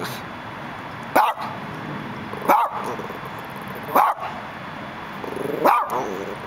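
Long-haired dachshund barking: four single barks, about one every second and a half.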